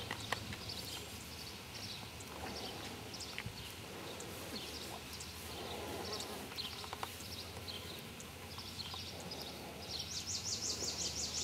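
Rural outdoor ambience: short high-pitched chirps repeating throughout, with a fast buzzing trill for about a second and a half near the end.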